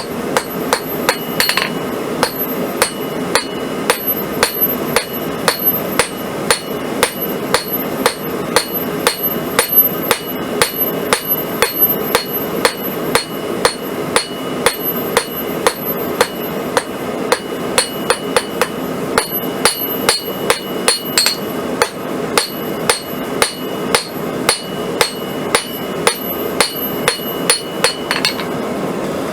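Blacksmith's hammer striking hot 1/4-inch square steel on an anvil in a steady rhythm of about two to three blows a second, drawing out the point of a drive hook. The anvil rings between blows over a constant rushing noise underneath.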